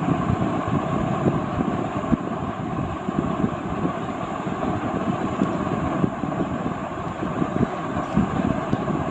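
Steady rushing, rumbling noise of moving air, with no distinct events.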